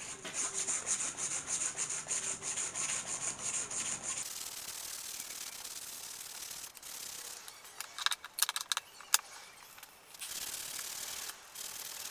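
A strip of sandpaper is pulled back and forth around the neck of a steel claw hammer head, rasping in quick, even strokes. About four seconds in, the strokes turn to a steadier scratch, and a few sharp clicks come just past the middle.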